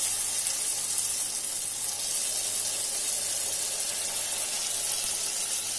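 Vellaiappam batter rounds deep-frying in oil in a kuzhi paniyaram pan: a steady, high-pitched sizzle of bubbling oil.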